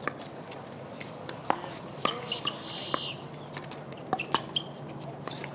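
Pickleball paddles striking a plastic ball and the ball bouncing on the hard court: scattered sharp pops and clicks, with faint voices in the background.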